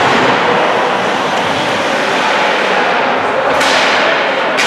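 Echoing noise of a youth game in a large indoor hall or rink, with a sharp crack about three and a half seconds in and another near the end.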